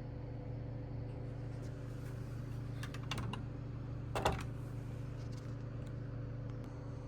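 A few light clicks about three seconds in and a sharper clatter a second later, from small hard objects such as diecast model cars being handled on a table. A steady low electrical hum runs under them.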